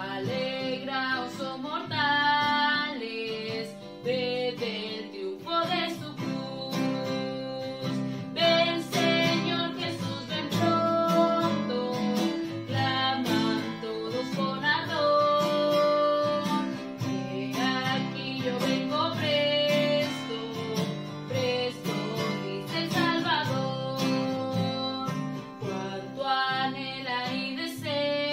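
A woman singing a Spanish-language hymn, accompanied by an acoustic guitar played in chords.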